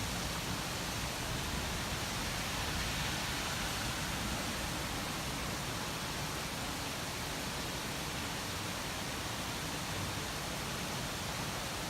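Steady, even rain-like hiss from a thunderstorm white-noise track, with no thunderclaps.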